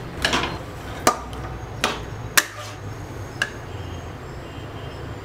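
A metal cooking utensil knocking against a steel kadai while vegetables are stirred in it: four sharp clinks, the third the loudest, over a low steady hum.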